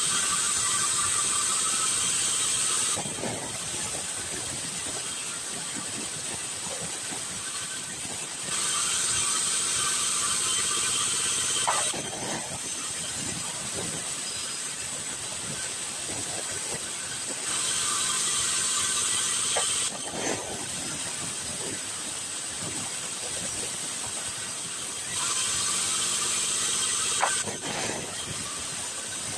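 Sawmill band saw cutting a wooden plank lengthwise in repeated passes: four louder stretches of cutting with a high hiss, each lasting a few seconds, with the blade running more quietly between passes.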